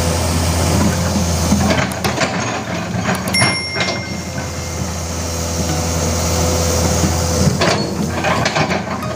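Komatsu PC200 hydraulic excavator's diesel engine running steadily under load as the bucket digs through soil, roots and brush. Scattered sharp cracks and knocks come through, about two seconds in, around the middle, and several near the end.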